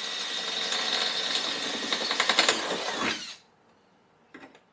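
Power drill with a small bit boring into the Jeep's sheet-metal rocker panel: a steady high motor whine, with a rapid chattering of the bit in the metal about two seconds in. The drill then winds down and stops a little after three seconds.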